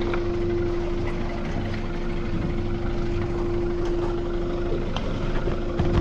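Yamaha four-stroke outboard idling: a steady low hum with one steady whining tone that drops out for about a second near the end, with a couple of light knocks.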